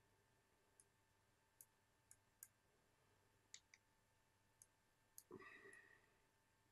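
Faint, scattered clicks from a SMOK Skyhook box mod being handled and its buttons pressed, about eight in all, with a brief bump and rustle a little after five seconds in.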